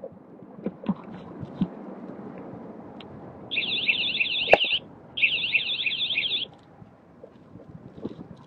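Two bursts of a high electronic warbling alert tone, each a little over a second long with a short gap between, over low wind and ride noise.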